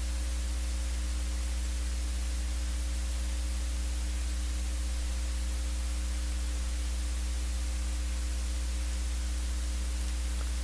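Steady electrical hum with a constant hiss, the mains hum and noise of the recording microphone and its chain, with nothing else sounding.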